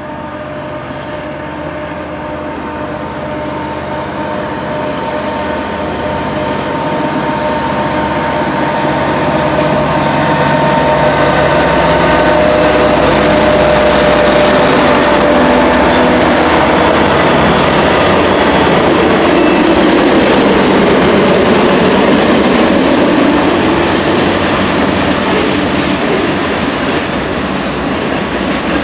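Norfolk Southern diesel freight locomotive approaching and passing close by, its engine growing steadily louder to a peak about halfway through, then the rumble of tank cars rolling past on the rails.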